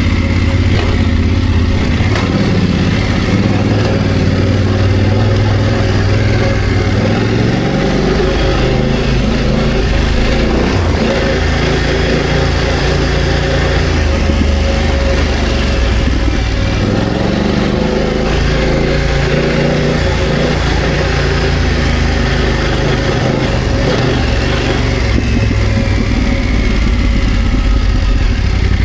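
BMW F900GS parallel-twin motorcycle engine running under changing throttle while riding off-road, its pitch rising and falling as the revs change.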